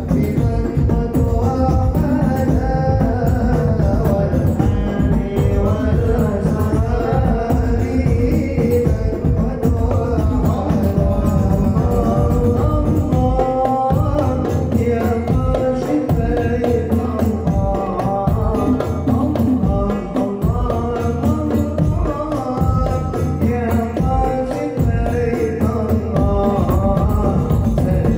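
An Islamic sholawat sung by voices over a hadrah percussion ensemble: frame drums with jingles and large bass drums keeping a steady beat.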